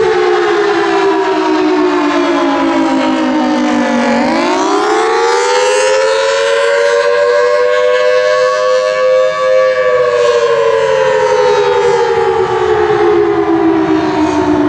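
Federal Signal Thunderbolt 1003 dual-tone outdoor warning siren wailing, its two-note chord sliding down for about four seconds, climbing for about five, then winding down again. This rise-and-fall wail is the attack signal that these sirens sound for tornado warnings.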